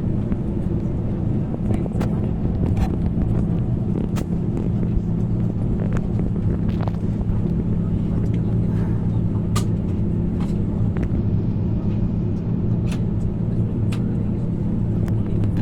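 Steady low hum inside the cabin of an Airbus A321 before engine start, its ventilation and air-conditioning running, with a few faint clicks and knocks from the cabin.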